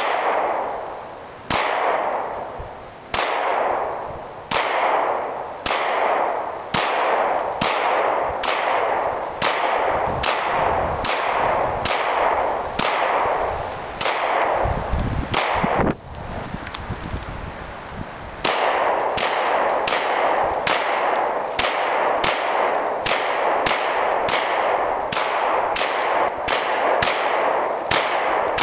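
FN FNX-45 .45 ACP semi-automatic pistol fired in a steady string of about thirty shots, roughly one every second or less, each shot ringing off in echo. The string breaks for about two seconds a little past the middle, then carries on at the same pace.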